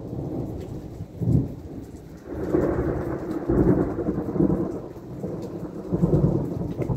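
Thunder rumbling in rolling surges, the biggest building about two seconds in and rolling on for several seconds, over the patter of rain.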